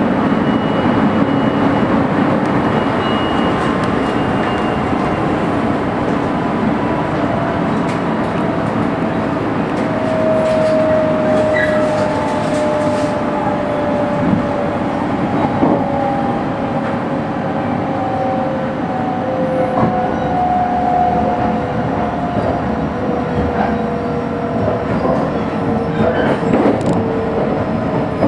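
Running noise heard inside a JR 285-series Sunrise Express sleeper train at speed: a steady rumble of wheels on rails, with a faint tone that slowly falls in pitch through the second half. A few sharp clicks from the track come near the end.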